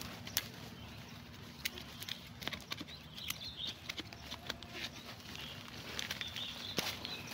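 Irregular sharp snaps and crackles with rustling, as hands grip a shrub at its base and twist and pull its woody stems and roots loose from the soil.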